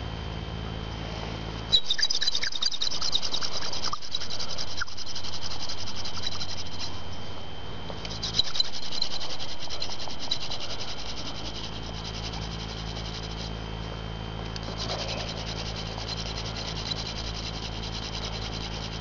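Hand drill for friction fire: a mullein stalk spindle spun between the palms on a red oak fireboard, wood grinding on wood in a fast, rasping rhythm. It starts abruptly about two seconds in, stops briefly near seven seconds, starts again near eight seconds and eases to a quieter rasp from about eleven seconds on.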